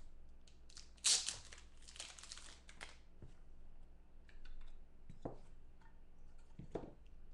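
Hands handling clear plastic trading-card cases: a crinkling, rustling plastic noise for about two seconds, then two sharp plastic clicks near the end.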